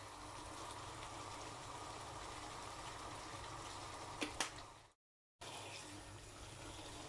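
Steady sound of water in a cooking scene, with two sharp clinks a little after four seconds in; it breaks off completely for half a second near five seconds and then resumes.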